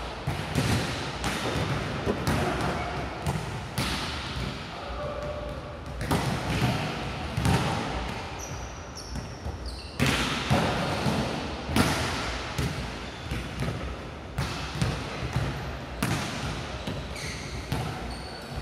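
Balls bouncing and thudding on a hard hall floor in quick, irregular succession, with voices behind them and a few short high squeaks near the middle and end.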